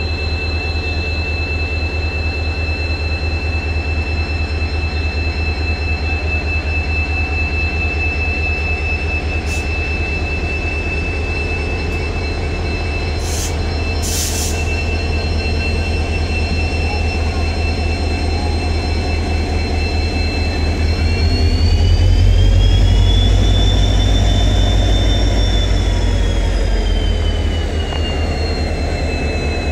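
WDP4D diesel-electric locomotive's EMD 16-710 two-stroke V16 engine running with a steady, throbbing beat and a high turbocharger whine. About 21 s in, the engine revs up for departure: the whine rises in pitch and the engine gets louder, then eases back a few seconds later. A few short hisses come around the middle.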